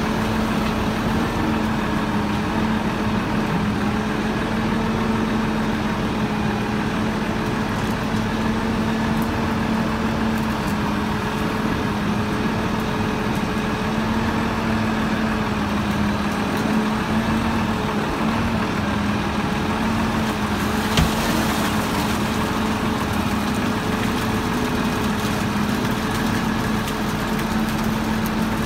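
Engine of the machine working the hydraulic crane and clamshell grab running steadily, a constant hum with no revving. One sharp knock about 21 seconds in.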